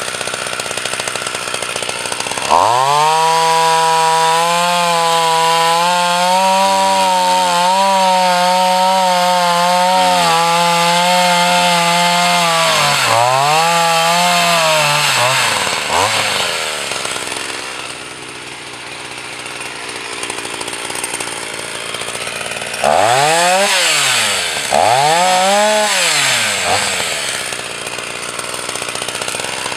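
Husqvarna 240 two-stroke chainsaw opened to full throttle about two seconds in and held at high revs while cutting through a log, the revs dipping and recovering twice as the cut ends. It then drops back to idle and is blipped up and let fall twice near the end.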